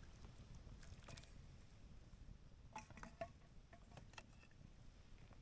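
Near silence with a few faint clicks and light knocks, most of them around the middle: a ladle working in a pot of fish soup while it is dished up.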